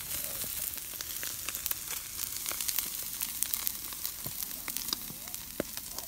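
Steaks sizzling on a grill grate over an open wood fire, a steady hiss with many small sharp pops and crackles scattered through it.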